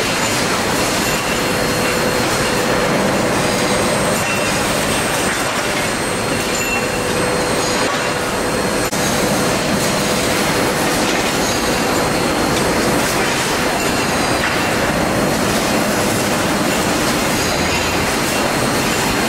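Continuous loud machinery noise from an automatic hot-forming and hot-threading screw spike production line: dense metallic clatter and hiss under a steady mid-pitched whine.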